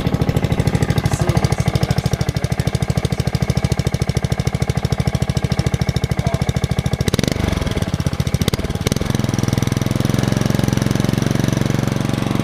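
Honda GCV190 single-cylinder four-stroke engine on a 21-inch commercial walk-behind mower, running with rapid, even firing pulses moments after a cold start on the first pull. About seven to nine seconds in its sound changes, then it settles into a steadier running note.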